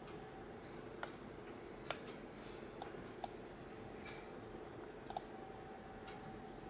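Computer mouse clicking faintly: about six separate, irregular clicks, one a quick double click, over a low steady hum.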